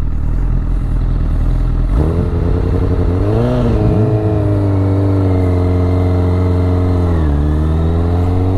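Honda Fireblade's inline-four engine revving and pulling away from a standstill, its note climbing steadily as the bike gathers speed, with a brief dip near the end before it climbs again. Wind and road noise run underneath.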